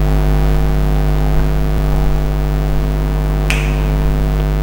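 Steady electrical mains hum, a constant buzz, with one sharp click about three and a half seconds in.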